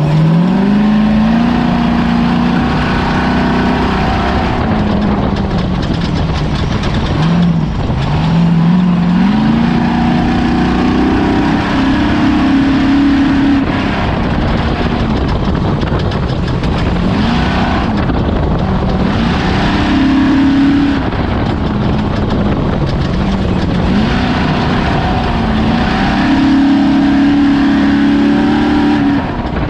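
Off-road race vehicle's engine running hard, its pitch climbing and dropping again and again as the driver accelerates and lifts, over a constant rough rumbling noise.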